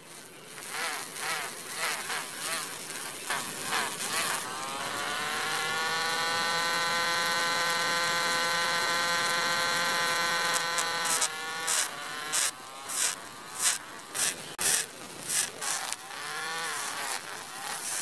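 Small DC motor of a miniature model tractor whirring as it drives a belt-powered toy grinding wheel. The sound is a stop-start, stuttering buzz at first. From about four seconds in it becomes a steady whine that rises slightly and holds for several seconds, then cuts back to uneven buzzing bursts.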